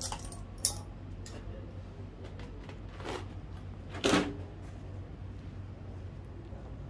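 A few sharp clicks and clinks of metal tools and small parts being handled, the loudest a short clank a little after four seconds, over a steady low hum.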